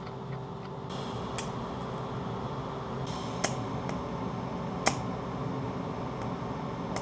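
TIG welding arc on thin stainless steel at low current (22 amps): a steady low hum with a faint hiss. Three sharp clicks sound a second or two apart.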